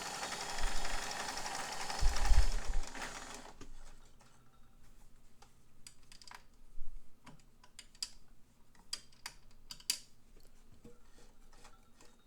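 White Model 510 sewing machine running as it stitches a straight-stitch row, with the growling sound of this machine, which the owner wonders may come from its rubber timing belt; a low thump sounds about two seconds in. The machine stops about three and a half seconds in, and scattered light clicks and taps follow.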